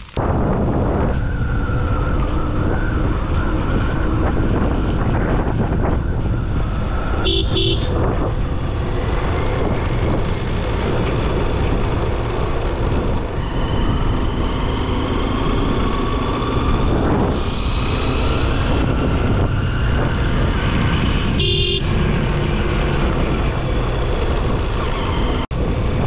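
Motorcycle riding at speed: steady loud engine and rushing wind and road noise. A short horn toot sounds about seven seconds in and again about twenty-one seconds in.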